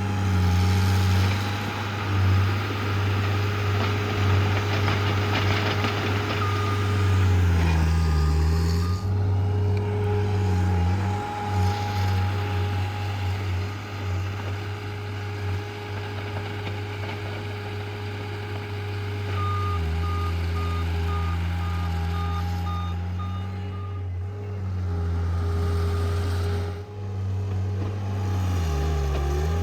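John Deere skid steer's diesel engine running under load while it moves muck, its note dipping several times. Its backup alarm beeps in a steady pulse for several seconds past the middle and again at the very end as it reverses.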